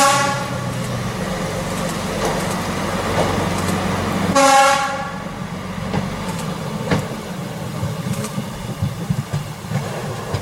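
Class 810 diesel railbus sounding its horn twice, once at the start and again about four and a half seconds in, over the steady drone of its engine. Its wheels click over the rail joints as it pulls away through a tunnel.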